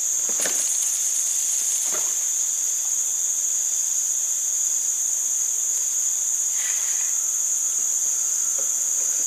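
Steady, high-pitched drone of insects from the riverside forest. It holds at an even level throughout, with a few faint brief sounds over it.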